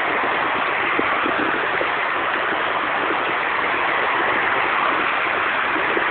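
Steady, unbroken rush of sea waves.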